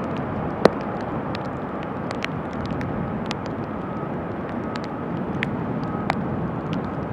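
Steady noise of a Boeing 777-300ER's two GE90 jet engines running as the airliner slows on the runway without reverse thrust, with a faint whine in it. Scattered sharp ticks sound over it, one louder about a second in.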